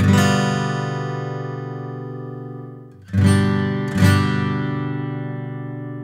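Gibson Doves in Flight square-shouldered dreadnought acoustic guitar, maple back and sides, strummed: a chord struck at the start rings out and slowly fades, then two more strums about three seconds in, a little under a second apart, ring on.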